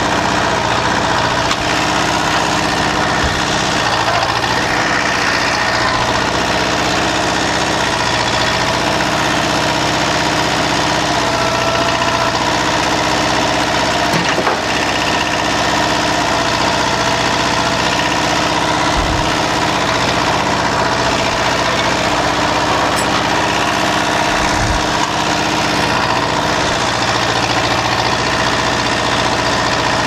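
Kubota L285 compact tractor's diesel engine running steadily while the tractor is driven, with a few short low thumps in the second half.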